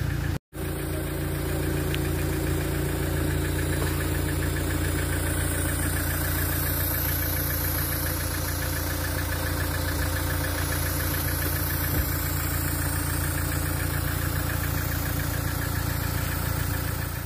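Car engine idling steadily, warming up after a night locked in snow and ice so that the heater can clear the frozen windscreen.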